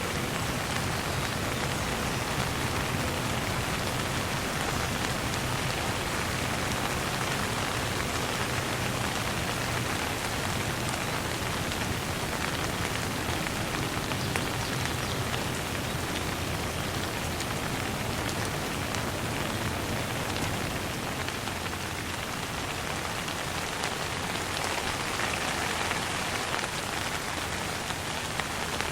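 Light rain falling steadily.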